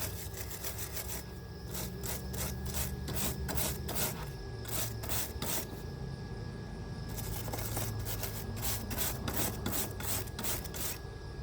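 Hand wire brush scrubbing a freshly laid MIG weld bead on metal, in quick back-and-forth scraping strokes with short pauses, cleaning off the weld to show its penetration.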